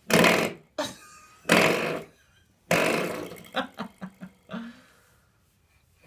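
Spring doorstop flicked by hand, giving a buzzy boing several times. The last and longest twang rings down with a quick rattle.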